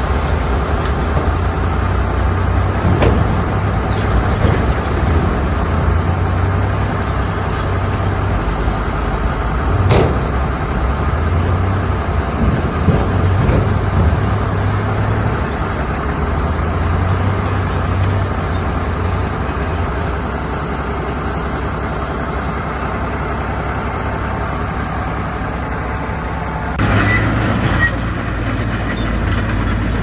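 Heavy diesel earthmoving machinery working: a steady low engine drone with a few sharp knocks and clanks. Near the end the engine gets louder.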